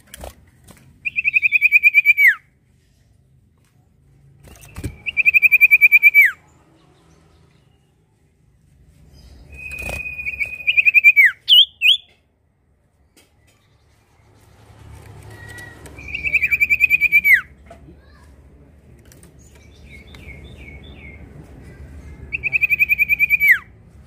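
A caged sirtu songbird singing: five phrases, each a fast buzzy trill held on one pitch that ends in a quick downward slur, repeated about every five seconds. A few sharp flutters or knocks come between phrases, the first as the bird hops off its perch at the start.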